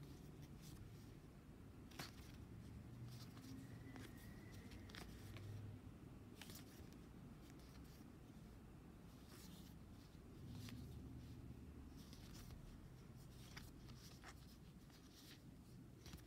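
Faint clicks and slides of stiff game cards being fanned and flipped through by hand, scattered irregularly over quiet room tone.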